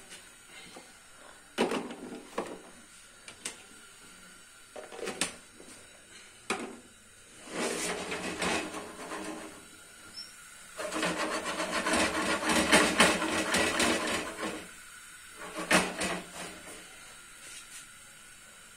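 Spice tempering (cumin, coriander and red chilli frying in oil) in a grill pan on a gas burner. Scattered clicks and knocks of spice containers and the pan give way to two stretches of rasping crackle as the spices are worked in the hot pan, the longer one about 11 to 14 seconds in. Another knock comes at about 16 seconds.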